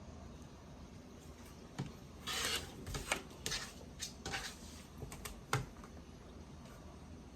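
Fabric being cut and handled on a cutting mat: a short scraping swish of a rotary cutter about two seconds in, then a run of sharp taps and clicks as the ruler and cut pieces are moved.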